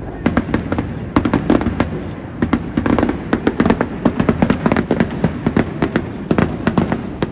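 Fireworks bursting in rapid volleys: many sharp bangs and crackles in quick succession, easing off near the end.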